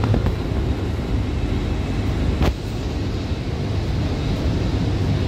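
Steady low rumble of outdoor town or station ambience, with one sharp click about halfway through.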